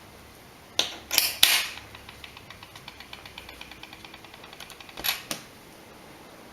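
Small tools and screws clicking against a phone's plastic frame as its screws are taken out: a few sharp clicks about a second in, then a run of fast light ticks for about three seconds, then two more clicks.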